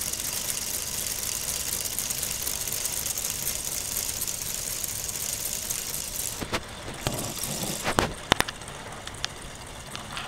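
Motor-driven K'nex model V8 engine running: a steady whirring clatter of plastic cranks, rods and pistons that stops about six seconds in. Several sharp plastic clicks and knocks follow as the pieces are handled.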